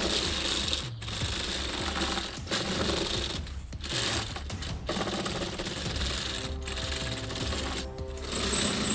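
Plastic track links of a Panlos Leopard 2 brick-built tank model clattering as the hull is rolled back and forth by hand over paper, with short breaks each time it changes direction.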